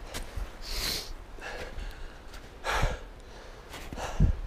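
A person breathing hard in a few short, hissing exhales while walking over avalanche debris, footsteps in the snow, with a dull thump near the end.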